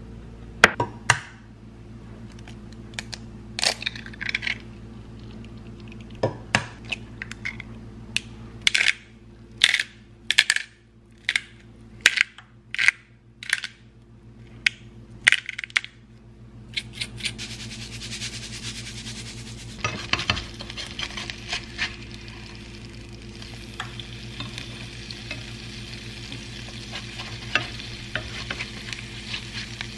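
A run of sharp clicks and taps of kitchen utensils on a plate and pan. Then, from a little past halfway, eggs frying in oil in a nonstick frying pan give a steady sizzle, with a few light spatula scrapes near the end.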